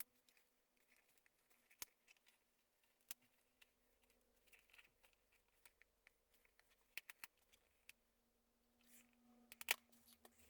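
Faint, scattered clicks and crackles of a flexible TPU 3D print being peeled off the printer's build plate, a brief cluster of louder clicks near the end, over a faint steady hum.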